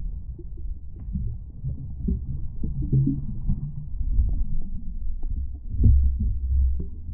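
Muffled underwater sound picked up by a submerged camera in its housing: a low rumble of moving water with scattered soft knocks and thuds, and nothing in the higher pitches.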